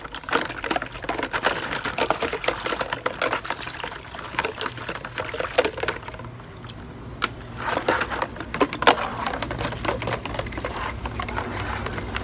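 Baby bottles being washed by hand in a basin: water splashing and sloshing, mixed with a rapid run of small clicks and knocks of plastic.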